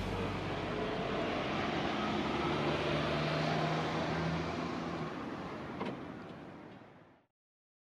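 Steady running noise of a road vehicle, a low hum under a wide hiss, fading down and cutting to silence about seven seconds in.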